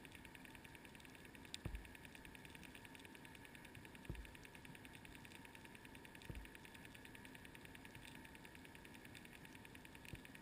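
Muffled near silence of a GoPro recording from inside its waterproof housing underwater: faint, fast, even ticking, with three dull low thumps about one and a half, four and six seconds in.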